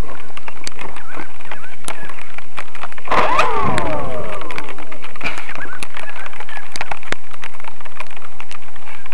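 Handling noise on a small camera fixed to a radio-control Cessna 185 model: scattered clicks, knocks and rubbing as the overturned model is righted and moved across the grass. About three seconds in, a brief whine falls in pitch.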